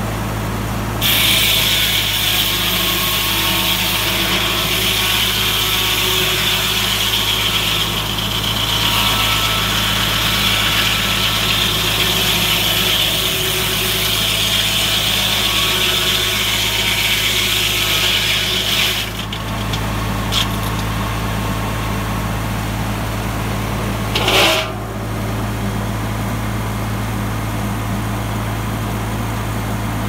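Foley Belsaw M-14 circle sawmill's 40-inch blade ripping through an old pine log from about a second in until about 19 seconds, a loud hiss of cutting over the steady hum of the tractor engine driving the mill. After the cut the blade spins free with the engine running steadily, broken by a short sharp knock about 24 seconds in.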